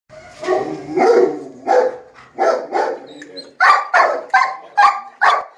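A Belgian Malinois barking about ten times, the barks coming closer together toward the end.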